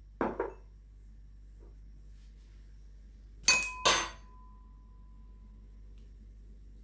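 Small ceramic bowls and a metal spoon clinking on a kitchen counter: a duller double knock just after the start, then two sharp clinks about three and a half seconds in, the second leaving a brief ringing tone.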